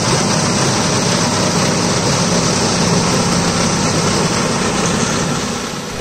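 Belarus farm tractor's diesel engine running steadily under load while its rear-mounted rotary tiller churns through the soil.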